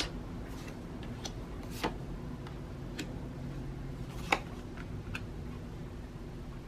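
A handful of faint, short clicks and taps at irregular intervals, the loudest about four seconds in, over a steady low room hum.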